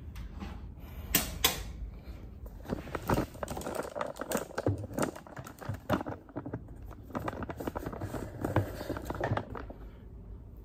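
A run of irregular light clicks and taps, the two loudest a little over a second in.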